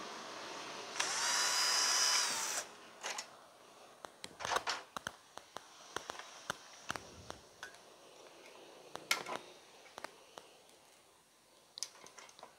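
Small motor whining with a hiss for under two seconds, rising in pitch as it starts and falling as it stops, most likely an electric vacuum desoldering gun sucking solder from the pins of a TV's horizontal output transistor. Scattered small clicks and taps from tools on the circuit board follow.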